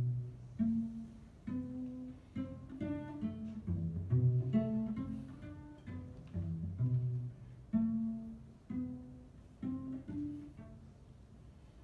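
Solo cello played pizzicato: a run of short plucked notes in low and middle registers, in an uneven rhythm, growing quieter near the end.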